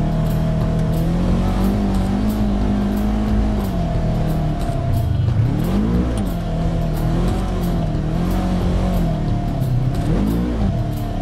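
Side-by-side UTV engine running under way at steady revs, with two brief blips where the revs rise and fall again, about halfway through and near the end.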